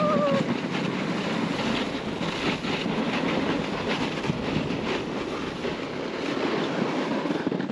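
Sled sliding over packed snow: a steady rushing, scraping noise. A voice's held call trails off at the very start.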